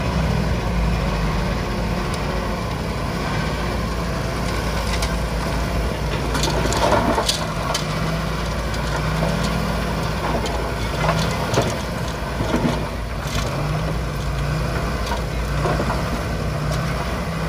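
Diesel engines of a dump truck and a Komatsu D20P bulldozer running steadily together, with a few clanks and knocks about a third of the way in and again past the middle.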